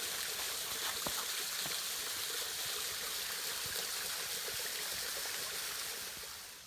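Steady rushing of a waterfall pouring through a hole in a rock overhang, with scattered drips and small splashes. The rush drops in level shortly before the end.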